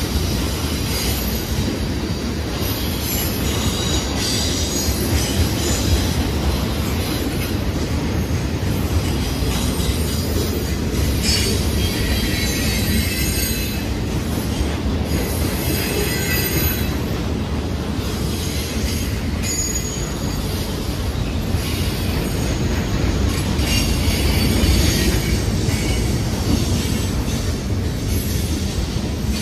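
Two freight trains rolling past on adjacent tracks: a steady rumble of wheels on rail, with high-pitched wheel squeal coming and going several times.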